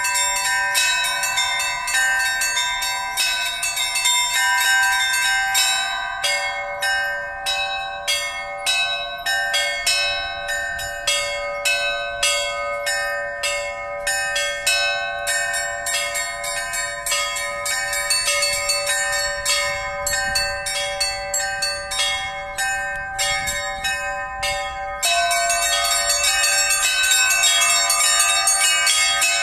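Orthodox church bells rung by a bell-ringer: several bells of different pitches struck in a pattern, their tones ringing on and overlapping. About six seconds in the ringing thins to separate strokes, about two a second, and near the end it steps up into a louder, denser peal.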